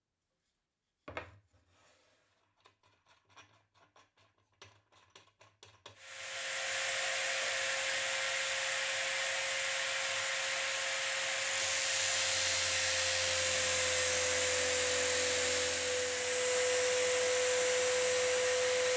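Drill-driven drum sander on a homemade drill press: a few light knocks as a wooden board is handled, then from about six seconds in a loud, steady sanding noise with a steady tone as the board is fed against the spinning sandpaper drum.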